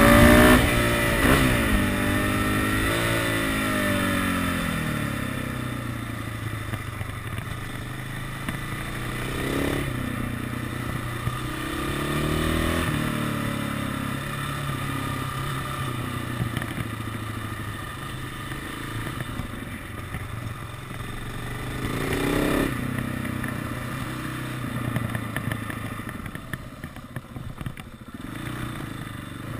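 KTM 690 SMC supermoto's single-cylinder engine under way. Revs fall as it slows at the start, rise in short bursts about ten, twelve and twenty-two seconds in, then run lower and quieter near the end as the bike rolls slowly.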